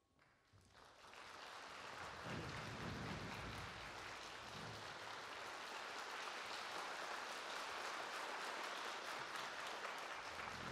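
Audience applauding: many hands clapping, swelling over the first couple of seconds and then holding steady.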